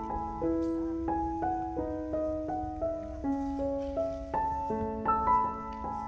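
Background music: a slow, gentle melody of ringing notes on a keyboard instrument such as a piano, a few notes a second.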